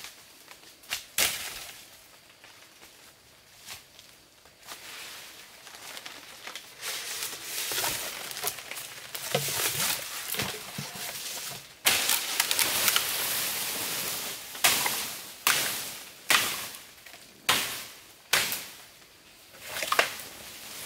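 A long bamboo pole being handled and dragged through undergrowth: leaves and stems rustling and swishing, loudest about two thirds of the way in. Then a run of sharp chopping strikes on the bamboo, about one a second, near the end.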